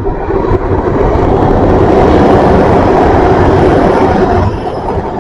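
GWR Intercity Express Train (bi-mode IET) passing close by at speed on its underfloor diesel engines: a rush of wheel and engine noise that builds, holds loud as the carriages go past, and drops off about four and a half seconds in.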